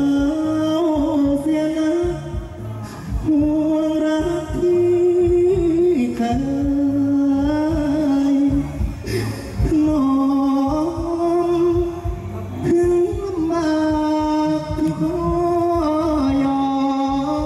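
Likay singer singing a slow, drawn-out melody with long held and gliding notes through a microphone and PA, over instrumental accompaniment with a steady low beat.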